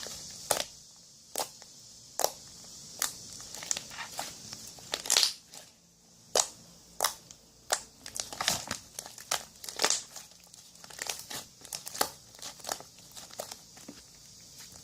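Slime being squeezed and pressed by hand, giving irregular sharp sticky pops and clicks, about one or two a second, with a faint crackle between them.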